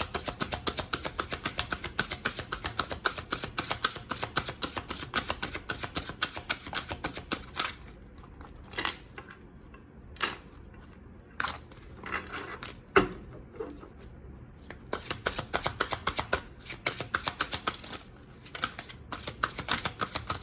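An oracle-size tarot deck being shuffled by hand: rapid runs of cards clicking against one another, thinning to a few separate snaps in the middle, then quickening again near the end.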